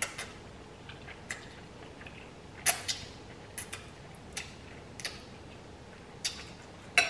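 Close-up eating sounds: instant ramen noodles slurped off a fork, with about ten short, sharp mouth smacks and clicks at uneven spacing, the loudest near the middle and at the very end.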